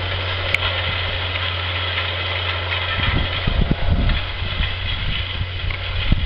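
Cat Challenger 865C tracked tractor's diesel engine running steadily as it pulls a Simba Cultipress cultivator through the soil, a constant low drone. A single sharp click about half a second in, and irregular low buffeting, like wind on the microphone, from about halfway through.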